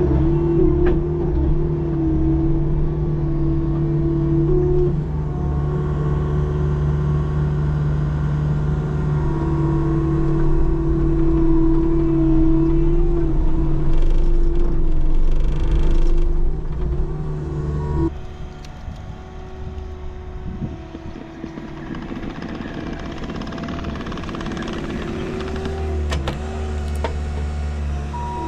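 Skid steer's diesel engine running steadily as the machine moves along. About two-thirds of the way in, the sound drops suddenly and the engine carries on more quietly.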